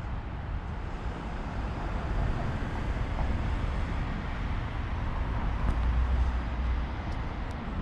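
Street traffic going past, with the noise swelling as a vehicle passes about five to six seconds in, over a continuous low rumble.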